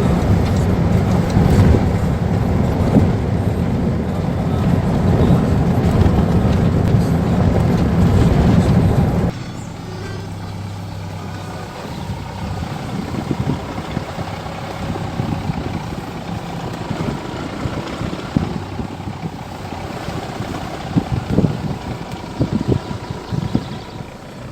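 Car engine and road noise while driving, steady, with a low hum. About nine seconds in it drops suddenly to a quieter, steadier level with scattered knocks.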